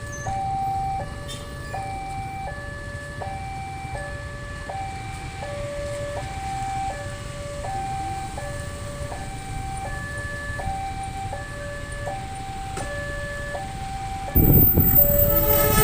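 Railway level-crossing warning alarm sounding: an electronic two-note tone alternating steadily high-low, over the low rumble of waiting traffic. About a second before the end a train arrives with a sudden loud rush.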